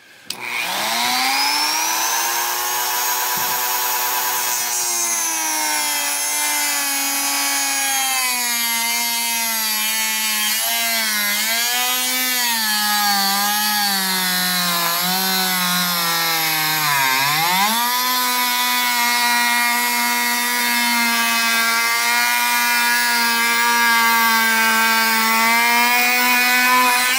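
Dremel rotary tool with a cutoff wheel spinning up to a high whine, then cutting through a metal screw. The motor's pitch sags and recovers again and again as the wheel bites, with one deep dip about two-thirds of the way through, then steadies.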